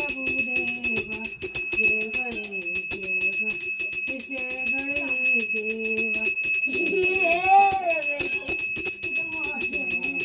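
A devotional aarti hymn sung by a voice, with a small hand bell rung rapidly and without pause all through. The bell's ringing rhythm is the puja's aarti accompaniment.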